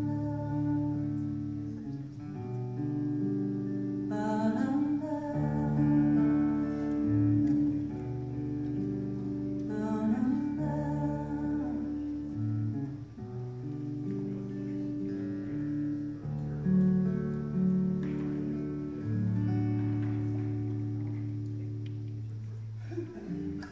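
Live instrumental music: acoustic guitar chords over low held bass notes, with no lyrics sung, stopping right at the end.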